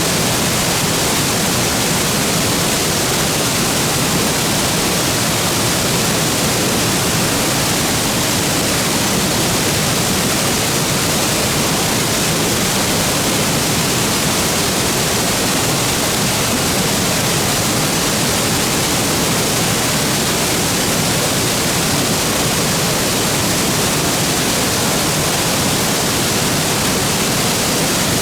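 Waterfall: water falling steadily into a plunge pool, a loud continuous rush with the most energy in the high range.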